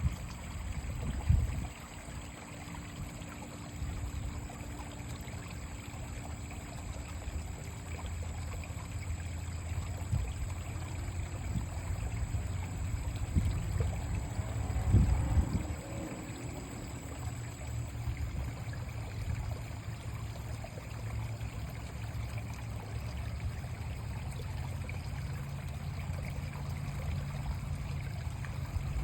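Creek water running steadily, with two short bumps, one about a second in and a louder one around the middle.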